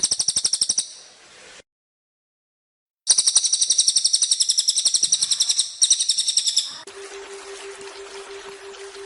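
Cililin bird singing a fast, high trill of rapidly repeated notes, in two bouts: a short one that fades out about a second in, then after a gap of full silence a longer one of about four seconds. Near the end a steady rushing waterfall recording with a low hum takes over.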